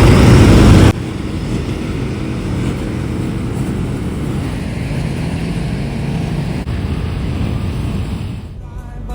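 Ride-on lawnmower engine running steadily while the mower is driven along. The first second is much louder and noisier, then cuts abruptly to a quieter, even engine note. The engine fades near the end.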